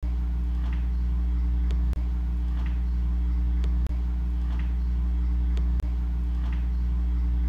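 A steady low hum that drops out for an instant three times, about every two seconds.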